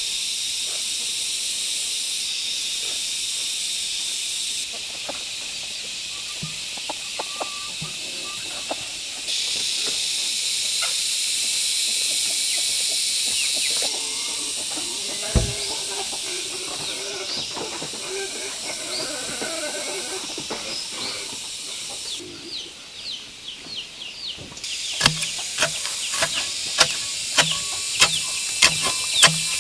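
Steady high hiss of forest insects, its level stepping at several cuts. Near the end, a hand tool's blade chops into soil at the base of a tree, about two sharp strikes a second.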